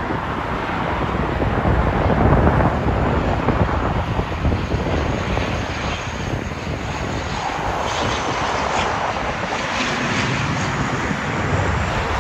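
Twin turboprop engines and propellers of an ATR 72 airliner on final approach, a steady drone as the aircraft flies low toward the runway to land. A thin high whine comes up about halfway through.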